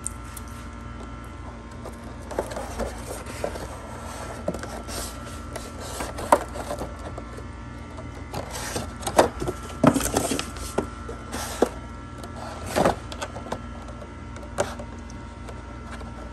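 Stiff clear plastic clamshell packaging being handled and pried open by hand: irregular crackles and sharp clicks, loudest about nine to ten seconds in and again near thirteen seconds. A steady hum runs underneath.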